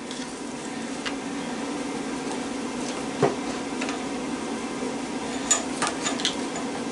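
A few light metallic clicks and taps from hand tools working on a microwave-oven transformer: one about a second in, a sharper one about three seconds in, and a quick cluster near the end, over a steady low hum.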